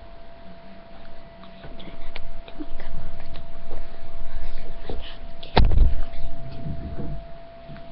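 Puppy moving and making small noises close to the microphone, amid knocks and rustling, with a loud thump about five and a half seconds in. A faint steady hum runs underneath.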